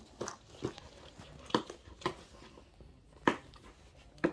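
A cardboard GIF Bits toy box handled as fingers pick at its tape and lid: about six sharp taps and clicks, irregularly spaced, the loudest about a second and a half in and about three seconds in.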